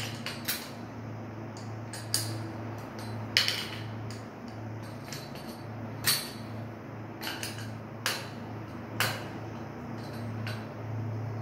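A metal wrench clinks against chrome wall-mounted water fittings as it grips and turns them, giving about seven sharp, irregularly spaced clicks. A steady low hum runs underneath.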